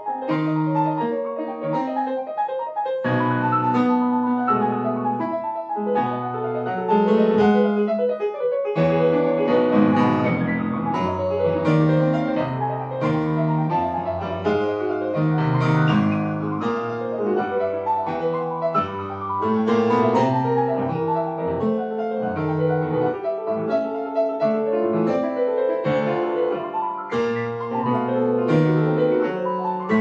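Yamaha grand piano played solo: a dense, fast-moving classical passage with many notes sounding together.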